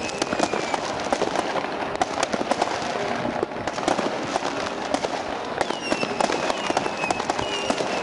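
Many fireworks going off at once, a dense, continuous crackle of bangs and pops. High whistles falling in pitch sound over it at the start and again from about five and a half seconds in.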